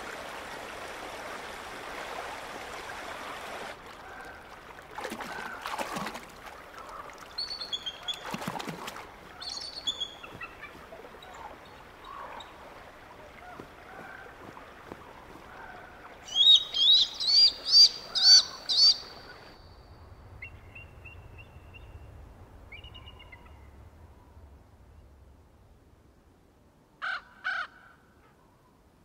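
Bald eagle calling: a loud run of about six high, rising, piping notes about halfway through, among scattered softer bird calls. A steady hiss fills the first few seconds, and two short harsh calls come near the end.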